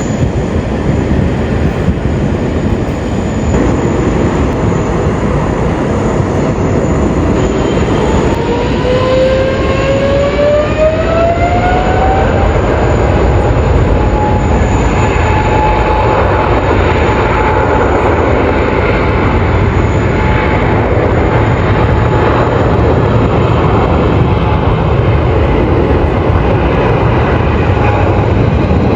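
Boeing 777-300ER twin jet engines running at high power with a heavy, steady rumble. About eight seconds in, a whine rises in pitch over several seconds and then holds steady, the sound of the engines spooling up to takeoff thrust.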